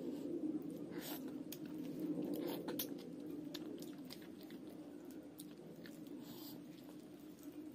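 Close-miked eating by hand: rice and fish curry squished and mixed with the fingers on the plate, with scattered soft wet clicks of chewing and mouth sounds. A steady low hum runs underneath.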